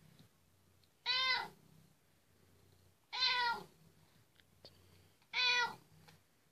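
A domestic cat meowing three times, about two seconds apart. Each meow lasts about half a second and rises then falls in pitch.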